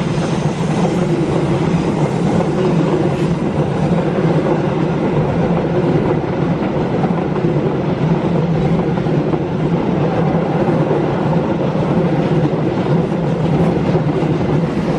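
Stainless-steel passenger coaches rolling past at close range, a steady loud rumble of wheels on the rails with some clickety-clack.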